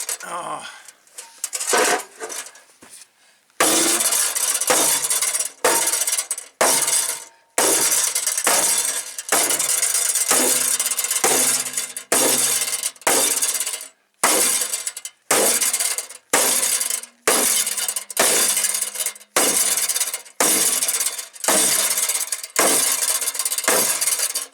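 Sledgehammer blows on a Freightliner truck's stainless steel fender, beating out a creased dent: sharp ringing metal strikes, a few scattered ones at first, then a steady run of about one to two a second from about three and a half seconds in.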